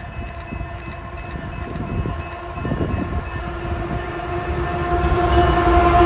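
Lead diesel-electric locomotives of a double-stack freight train approaching and passing close by. A steady multi-tone engine hum and a low rumble grow louder, peaking near the end as the lead unit goes by.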